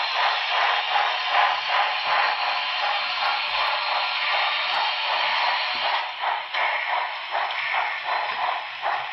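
A model steam locomotive's onboard sound system playing steam hiss with a regular chuffing beat, a few chuffs a second, that grows sparser after about six seconds.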